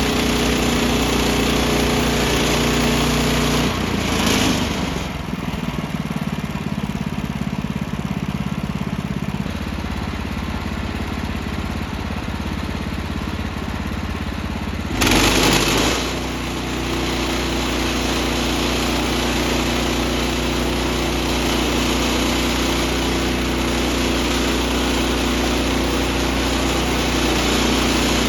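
Engine running steadily; its note drops and changes about four seconds in, and there is a short louder surge around fifteen seconds in before it settles back to the same steady running.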